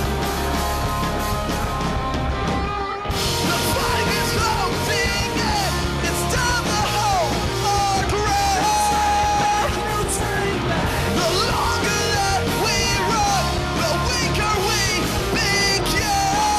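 Live rock band playing: distorted electric guitars, bass and drums, with a singer yelling over them. The band thins out briefly just before three seconds in, then comes back in at full force.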